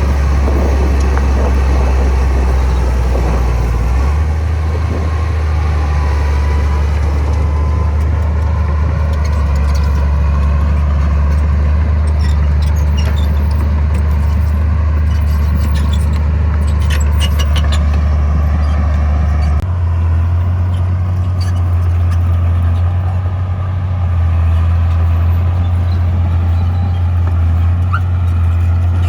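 Heavy construction machine's diesel engine running steadily under load, shifting to a different engine speed about four seconds in and again about two-thirds through. A run of sharp clicks and rattles comes midway.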